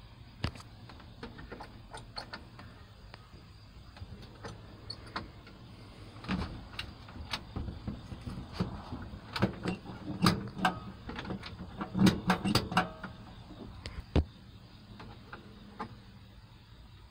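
Ford 300 inline-six engine with dual exhaust running, a steady low hum, with many sharp clicks and knocks over it that are thickest and loudest through the middle.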